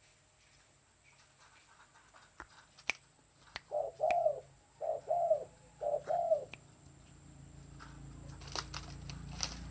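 Spotted dove cooing: three hoarse, two-part coos in quick succession in the middle, with a few faint clicks around them. A low rumble builds up near the end.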